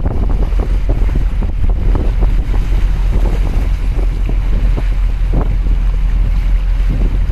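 Strong wind buffeting the microphone: a loud, constant low rumble broken by irregular gusty crackles, over open harbour water.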